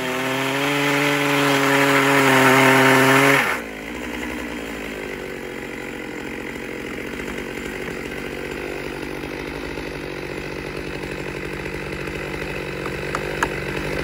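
Stihl chainsaw at full throttle ripping lengthwise through a large log in an Alaskan chainsaw mill, cutting a slab. About three and a half seconds in the sound drops abruptly to a quieter, steady cutting sound that carries on.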